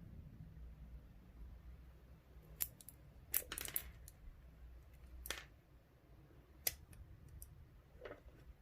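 Small metal clicks from a dimple euro cylinder lock being taken apart: a few sharp single clicks and a short rattle of small parts about a third of the way in, as loose pins drop out of the lock.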